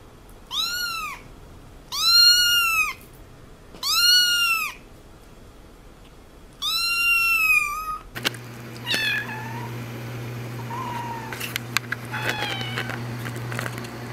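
Kittens meowing: a ginger kitten gives four high, thin meows about a second apart, each rising then falling in pitch. About eight seconds in, a tabby kitten follows with fainter, short squeaky meows over a steady low hum, with a few clicks.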